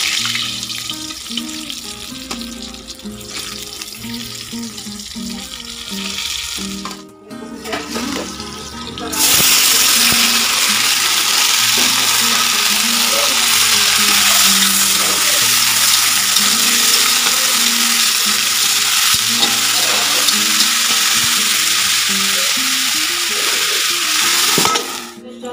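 Julienned potato strips frying in hot oil in a large wok, a loud steady sizzle that starts about nine seconds in, after a quieter sizzle of hilsa fish pieces frying. Background music with a repeating low melody plays throughout.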